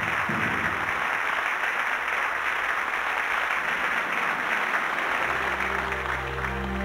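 Studio audience applauding steadily. About five seconds in, soft music comes in beneath the applause with low held tones.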